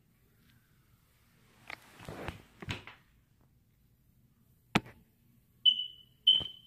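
Bedding rustling and a body sliding off a bed onto a wooden floor, with a few soft knocks. Then one sharp click, and two short, high chirps about half a second apart near the end, which are the loudest sounds.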